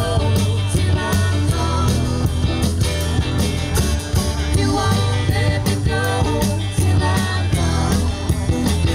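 A rock band playing live: singing over strummed acoustic and electric guitars, bass and drums, with a steady beat.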